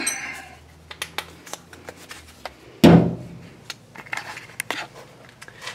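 Handling noises in a garage: scattered light clicks and taps of tools and equipment being moved, with one louder thump about three seconds in.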